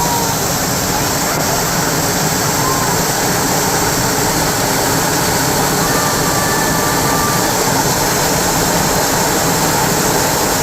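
Natural waterfall: water falling and splashing in a steady, loud rush, with a few faint, short, thin whistles over it.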